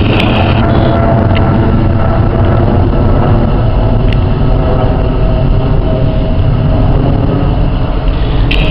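Jet engine noise from a Boeing 777-300ER's twin GE90-115B turbofans as the airliner passes overhead: a loud, steady rumble with a few faint tones above it.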